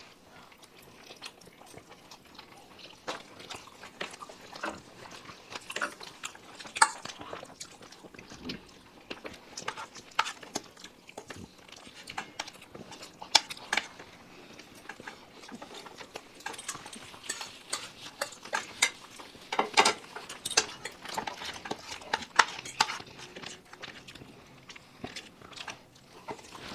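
Eating at the table: cutlery clinking and scraping on plates, with chewing, heard as irregular small clicks and scrapes with a few sharper ones spread through.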